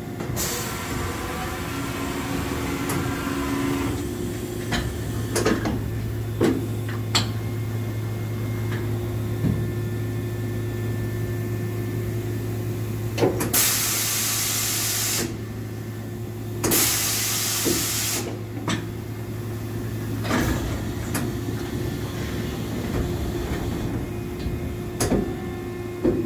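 The tool-change arm of a Johnford DMC-2100H CNC bridge mill's automatic tool changer being cycled while the unit is not hooked up to the machine. A steady motor hum runs under a series of sharp metallic clunks, with two loud bursts of air hiss, each a second or two long, about halfway through.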